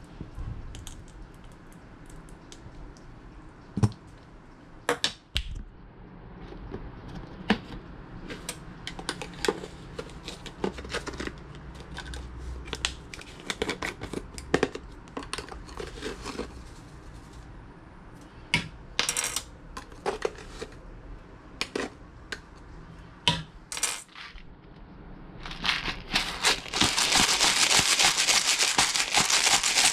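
Scattered light clicks and clinks of measuring spoons, jars and a mixing bowl being handled, then near the end a black pepper grinder twisted over the bowl, a loud, dense crackling of peppercorns being ground.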